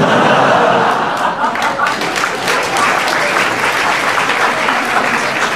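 Theatre audience applauding, loudest in the first second or so and then steady.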